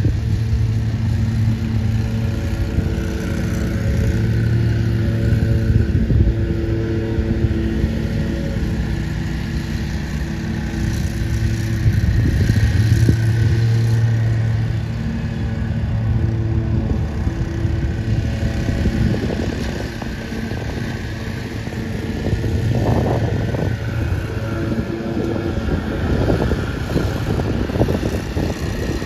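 A low, steady engine drone with a humming pitch that fades in and out every few seconds, over a low rumble.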